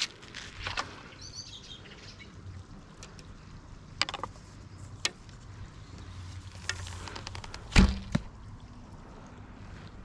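Archery shooting sounds from a bow and arrow: a sharp snap right at the start, a few light clicks and knocks, then the loudest sound, a heavy thump about eight seconds in, with a smaller knock just after it.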